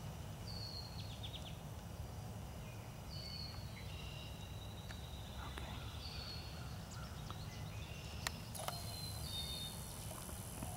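A songbird repeating a short, high, slightly falling call about every three seconds, faint over a steady low rumble. There is a single sharp click near the end.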